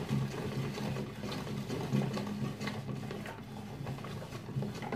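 Hand-cranked Tupperware Profi Chef rotary drum grater turning steadily as Parmesan is pressed against its fine powder drum: an even grating rasp with faint repeated ticks, over a low steady hum.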